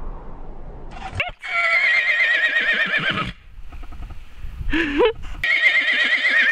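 A horse whinnying twice. The first is a long call with a quavering pitch about a second and a half in. The second starts near the end with a short rising note that goes into another quavering call.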